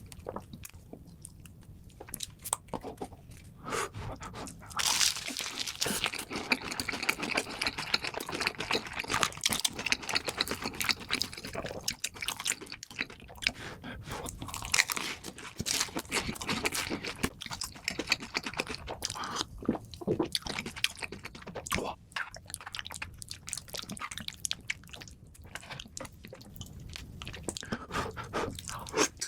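A person biting and chewing crunchy food close to the microphone, a steady run of crackling crunches. The crunching is densest from about five seconds in to about eighteen seconds, then thins to scattered bites and chews.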